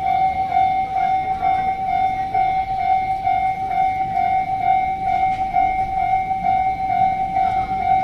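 Japanese level-crossing warning bell ringing in an even, fast-repeating electronic ding, over the low rumble of a freight train passing through the crossing.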